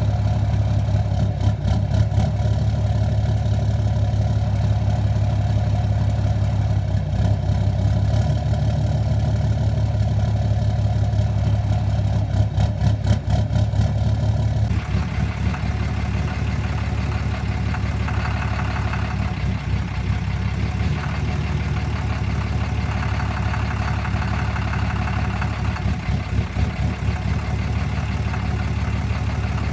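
2013 Cummins 6.7-litre turbo-diesel idling rough, with spells of rapid knocking in the first half. The tone of the engine changes about halfway through. This is the rough idle, surge and knocking that the owner reports on this emissions-deleted engine, which a new fuel control actuator has not cured.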